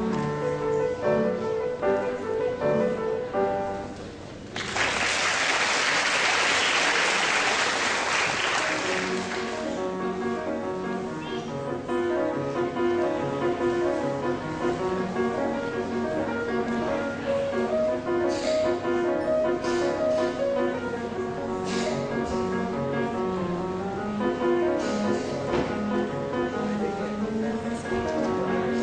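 Solo piano playing; the piece ends about four seconds in, the audience applauds for about five seconds, and then the piano starts again.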